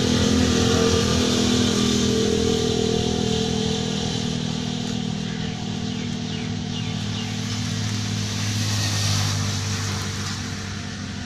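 An engine running steadily at a constant pitch, easing off a little near the end.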